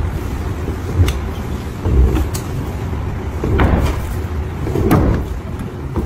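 Pneumatic dent-pushing ram braced across a car door, working against the panel: a low rumble with a few sharp knocks spread through the clip.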